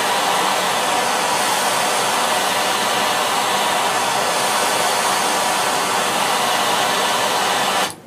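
Handheld propane torch burning steadily with a loud hiss, cut off suddenly near the end. It is preheating a thick stainless steel plate for soldering.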